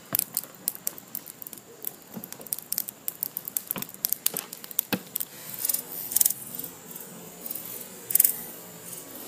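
Freshly lit charcoal fire in a large pit grill, crackling with irregular sharp pops. There are brief louder bursts of hissing about six and eight seconds in.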